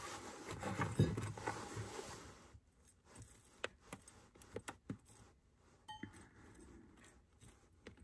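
Metal hive tool scraping and picking at a wooden hive frame and its comb in scattered short, sharp clicks, after a couple of seconds of rustling from gloved hands handling the frame.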